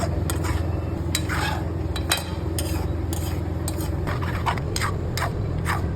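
Spoon stirring bee brood in a metal frying pan: irregular scrapes and clicks against the pan over a steady low hum.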